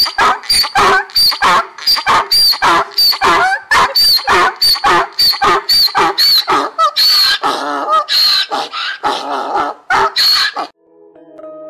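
Donkey braying: a long, loud run of rapid hee-haw calls that stops about a second before the end.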